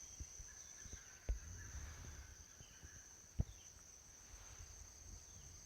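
Two sharp single knocks about two seconds apart: a white-bellied woodpecker's bill striking a tree trunk as it forages, over a steady high-pitched insect drone.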